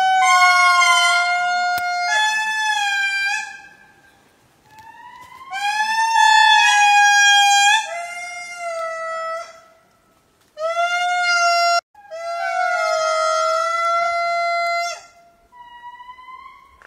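Lemur calls: a string of long, held calls, each one to three seconds, steady in pitch with slight rises and steps, broken by short pauses.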